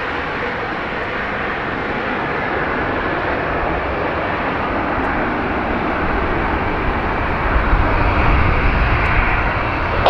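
The Embraer E195-E2's Pratt & Whitney PW1900G geared turbofans at climb power as the jet departs, a steady wide roar. A deep low rumble builds over the last few seconds.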